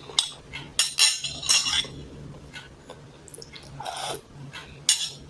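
Close-miked eating sounds: dishes and a utensil clinking, with wet mouth and liquid sounds, in a handful of short bursts.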